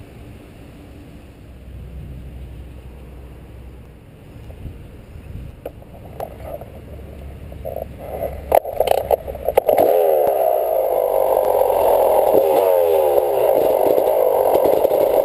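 Motocross bike picked up by a camera on its handlebars: a low, muffled rumble with a few sharp knocks and rattles, then from about ten seconds in the engine runs loud, its pitch rising and falling over and over as it is revved while riding.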